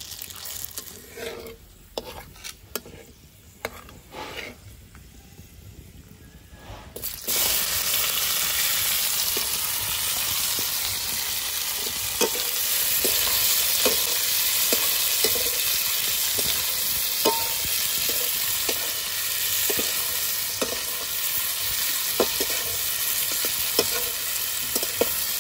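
Sliced onions and garlic going into hot oil in a metal kadai: a sudden loud sizzle starts about seven seconds in and holds steady, with the metal spatula scraping and clicking against the pan as they are stirred. Before that, only quieter spitting of whole spices in the oil.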